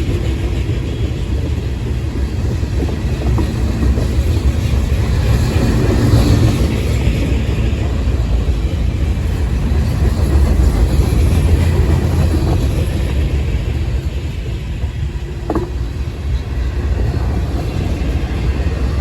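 Freight train rolling past on the rails, a steady low rumble of its cars.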